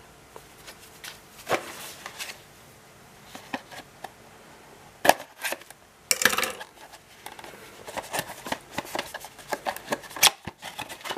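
Paperboard retail box being opened and its packaging slid out by hand: scattered scrapes, rustles and taps, with a few sharper clicks about five, six and ten seconds in and busier handling near the end.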